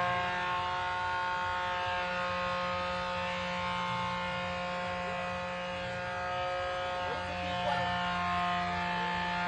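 Fish-calling loudspeaker sending out its lure sound: a steady electronic drone of several held tones at fixed pitches.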